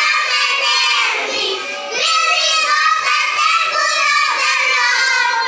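A small group of young children singing a nursery rhyme together in unison, loud and steady, with their high voices holding long notes.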